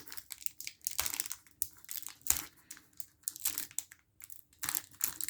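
Foil Pokémon booster pack wrapper crinkling in irregular bursts as it is handled and opened.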